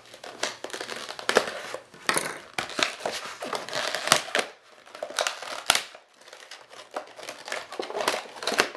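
Toy packaging crinkling and crackling as it is cut open, with many irregular sharp clicks and snaps.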